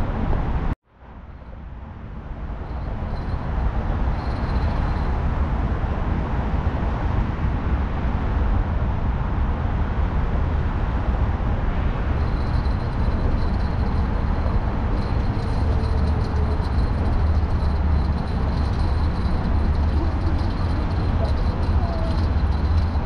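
Steady rumble of road traffic from a nearby highway bridge. The sound cuts out briefly about a second in and fades back up.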